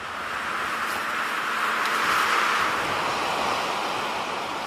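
A rushing noise with no tone in it, swelling to its loudest about two seconds in and then fading away.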